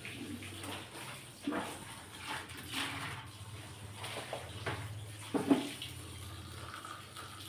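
Water running from a tap into a sink while things are washed and handled, with several short knocks, the loudest about five and a half seconds in.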